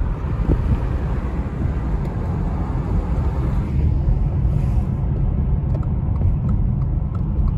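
Steady low rumble of a car's tyres and engine heard from inside the cabin while driving. A hiss over it eases off about four seconds in.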